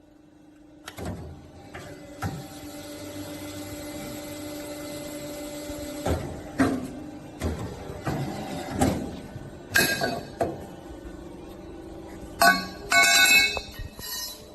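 Automatic steel pipe bending machine running with a steady hum. From about the middle it gives a run of clunks and knocks, with bright metallic clinks near the end, as the machine clamps and bends the steel pipe.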